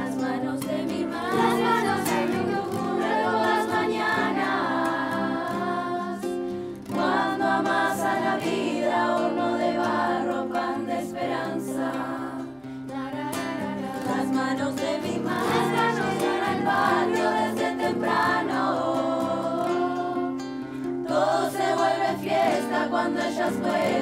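Children's choir singing an Argentine folk song in Spanish, accompanied by acoustic guitar, in long phrases with short breaks between them.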